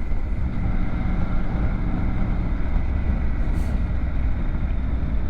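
Motorcycle running steadily: a constant low engine rumble with an even hiss of road and air noise over it.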